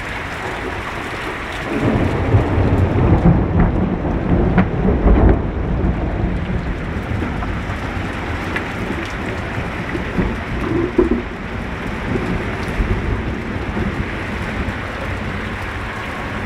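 Steady rain during a thunderstorm, with a roll of thunder rumbling low from about two seconds in, loudest around five seconds and dying away soon after.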